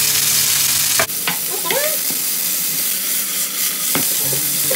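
Chicken strips frying in hot oil in a non-stick pan: a steady sizzling hiss, with two brief clicks, one about a second in and one near the end.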